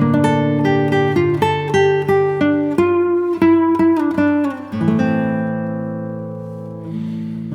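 Background music: a fingerpicked acoustic guitar playing a steady run of plucked notes, then letting a chord ring and fade from about five seconds in.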